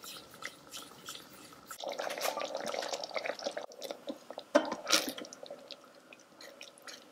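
Thick tomato gravy simmering in an Instant Pot's inner pot on low sauté, bubbles popping in irregular wet plops, busiest about two seconds in.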